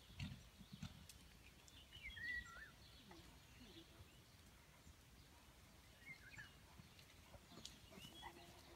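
Near silence with a few faint bird chirps, about two seconds in and again around six seconds.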